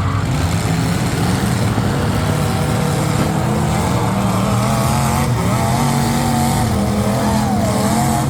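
Several demolition derby cars' engines running and revving together, a loud, continuous mix with pitches rising and falling.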